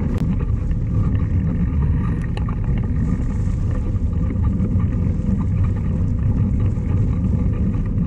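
Wind buffeting a microphone carried on a moving mountain bike: a loud, steady low rumble with a few faint clicks.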